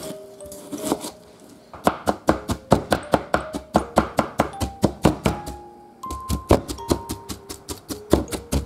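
A kitchen knife mincing raw chicken breast on a plastic cutting board. The blade strikes the board in quick, even chops at about four a second. The chopping starts about two seconds in, pauses briefly near six seconds, then carries on.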